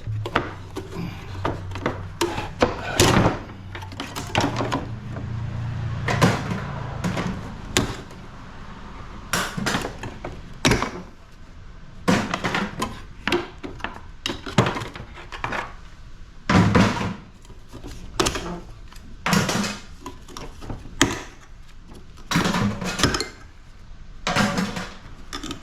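Irregular metal knocks and clanks as tools work at a rusted-on part of a scrapped air-conditioning unit that will not come free. A low hum runs under the first several seconds.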